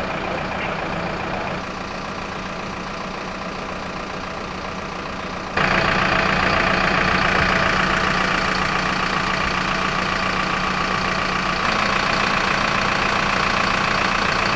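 Fire truck engine idling steadily, with a sudden step up in loudness about five and a half seconds in.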